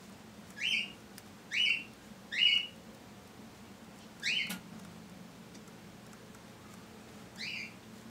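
Five short, rising, high chirps from a small animal: three in quick succession, then one more about two seconds later and a last one near the end, over a faint steady hum.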